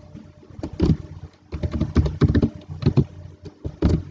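Computer keyboard typing: irregular runs of quick key clicks in short bursts, over a faint steady hum.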